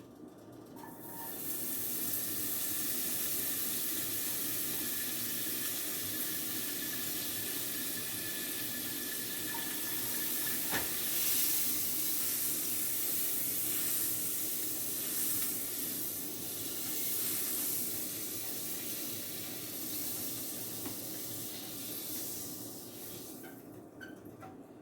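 Butter sizzling and crackling in a hot frying pan, a steady loud hiss that sets in about a second in and dies down near the end. The pan is hot enough that it then gets taken off the heat to cool.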